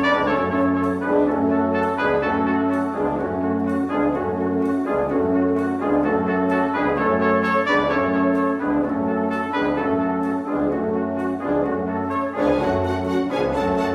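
Orchestral instrumental music led by brass, with sustained chords and a moving melody.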